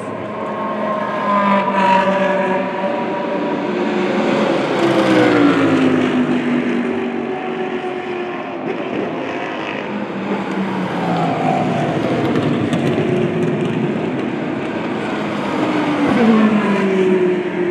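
GT3 race car engines running past, with the pitch dropping as cars go by about five seconds in and again near the end.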